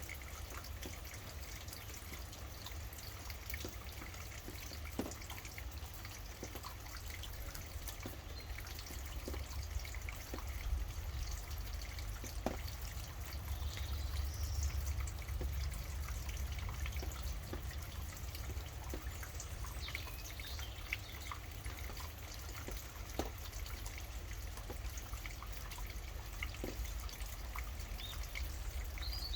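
Steady rain with scattered drops dripping close by over a low rumble, and a few faint bird chirps now and then.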